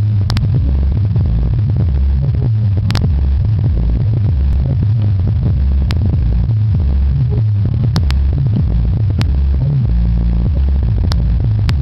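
Subwoofer playing a deep hip-hop bass line loudly, its notes stepping up and down in pitch, with a few sharp clicks scattered through.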